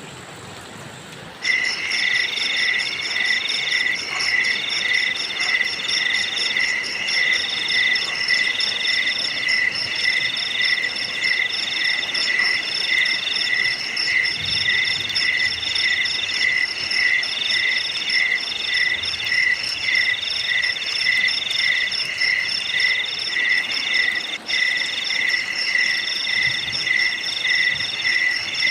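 A chorus of crickets and other insects chirping steadily, several rhythmic calls overlapping at different pitches. It starts abruptly a little over a second in, over a faint earlier hiss of water.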